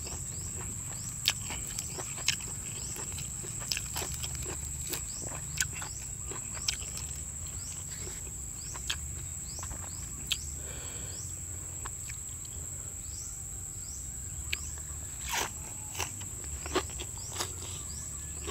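Eating by hand: scattered small clicks and crunches of fresh greens being torn, food picked from a plate with the fingers, and chewing, over a steady high-pitched insect drone.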